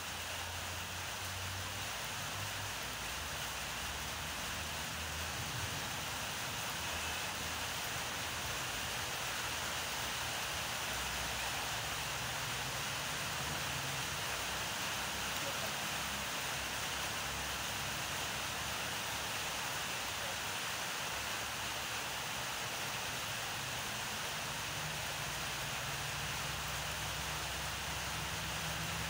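Steady, even outdoor background hiss, with a faint low rumble coming and going underneath.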